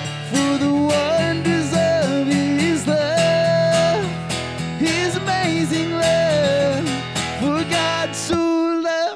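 Acoustic guitar strummed steadily under a man's singing voice. About a second before the end the strumming stops and one sung note is held on alone.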